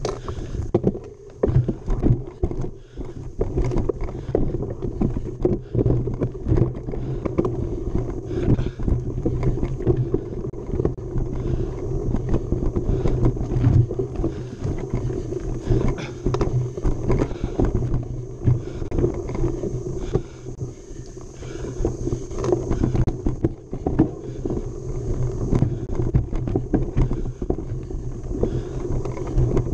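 Mountain bike ridden fast along a rough dirt trail: a steady rumble of wind and rolling tyres, broken by frequent knocks and rattles from the bike over bumps and rocks.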